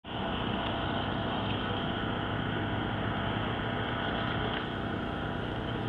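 Steady outdoor background noise with a low rumble and no distinct event.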